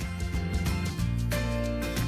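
Instrumental background music with sustained notes over a steady low bass.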